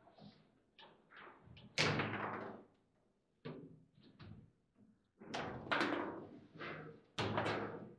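Foosball in play on a tournament table: a string of sharp knocks and bangs as the ball is struck by the plastic figures and hits the table walls, with rods clacking. The impacts come at uneven intervals, the loudest about two seconds in.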